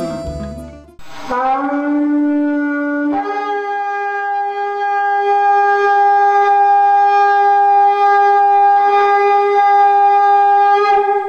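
Background music stops about a second in, and a shofar sounds one long blast: a short lower note that slides slightly up, then a jump to a higher note held steady for about eight seconds before it stops abruptly.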